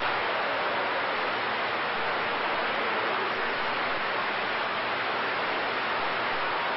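Steady hiss of band static from a CB radio receiver between transmissions, after a short click at the start as the previous station unkeys.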